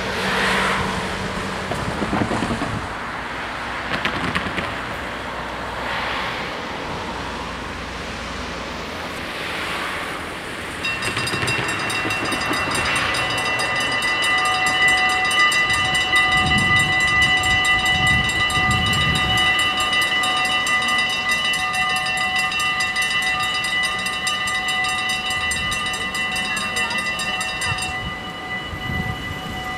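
Road traffic passing, then from about 11 s in the mechanical bells of a Dutch automatic half-barrier level crossing (AHOB) ring in a fast, continuous clatter while the red lights flash and the barriers come down. About two seconds before the end the ringing thins, with fewer bells still sounding.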